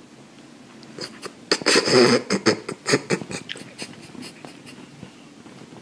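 Rustling and scratching noises as a cat moves about on a fleece pet bed, loudest about a second and a half in, then a run of sharp clicks that thin out.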